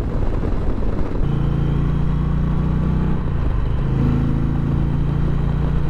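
2020 Indian Challenger Dark Horse's 1768 cc liquid-cooled V-twin running at road speed, heard from the rider's seat with wind rush. After a cut about a second in, the engine settles into a steady hum, and its note drops a step a little past halfway.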